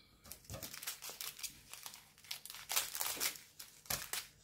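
Small plastic bags of diamond-painting drills crinkling and rustling as they are handled, in quick irregular crackles.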